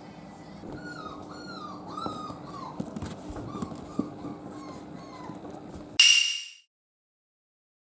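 Newborn miniature dachshund puppies whimpering: a run of short, high, squeaky cries that bend up and down in pitch. About six seconds in, a brief loud high sound, then the audio cuts off to silence.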